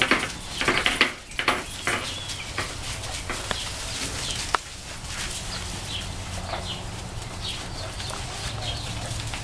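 Eleven-week-old pointer puppies playing tug with a toy: short, irregular squeaks, yips and scuffles, busiest in the first couple of seconds, with one sharp click near the middle over a steady low hum.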